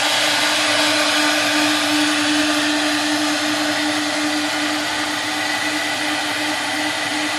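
AKM1325 woodworking CNC router running under test, its spindle motor giving a steady whine over a constant rushing noise.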